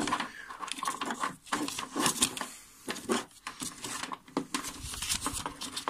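Hands feeding a thin camera cable through an opening in a car's sheet-metal boot lid and handling a clear plastic number-plate lamp housing: irregular rubbing, rustling and light clicks.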